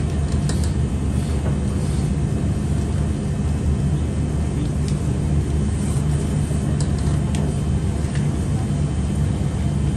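Steady low rumble of a ramen-stall kitchen's equipment, with a few light clinks of utensils and bowls scattered through it.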